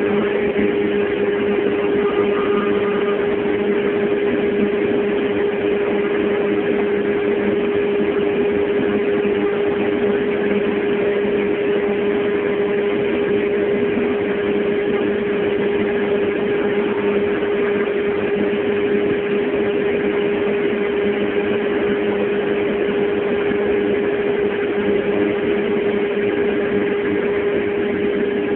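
Steady machine hum with one constant pitched tone over an even noise, unchanging throughout.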